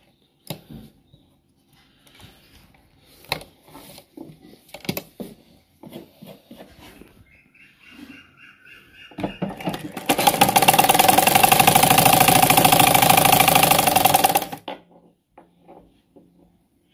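Cloth rustling and small knocks as fabric is handled at the machine, then about ten seconds in a domestic sewing machine runs fast and evenly for about four seconds, stitching a seam, and stops.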